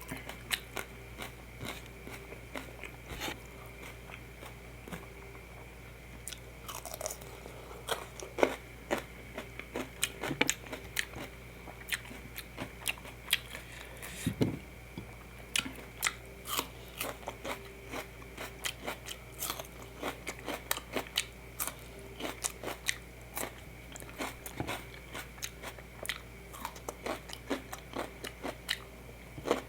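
Close-miked sounds of a person eating: chewing with sharp crunchy bites and wet mouth clicks, at an uneven pace. They are sparse at first and come thick and fast from about seven seconds in, over a faint steady hum.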